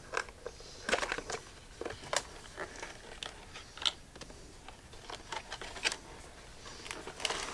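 Cardboard tablet box being handled and opened by hand: scattered scrapes, clicks and rustles of the packaging with no steady rhythm.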